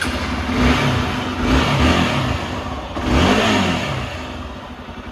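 Hero Xpulse 200's single-cylinder engine running and revving, its pitch rising and falling three times before settling lower.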